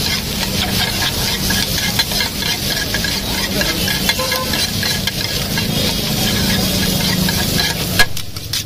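Two steel spatulas scraping, chopping and tossing egg fried rice on a large flat iron griddle, a rapid clatter of metal on metal over a steady sizzle of frying. A sharp knock comes about eight seconds in.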